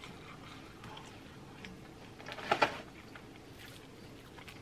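Close-miked eating sounds: quiet chewing and handling of fried food and chips in cheese sauce, with one short, louder sound about two and a half seconds in.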